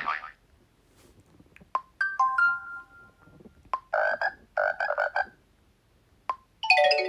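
Xiaomi Redmi 9A phone playing short previews of its built-in ringtones and notification tones one after another, each cut off when the next is picked. A two-tone chime comes about two seconds in, a croaking rattle follows, and a bright chime comes near the end, with short clicks between them.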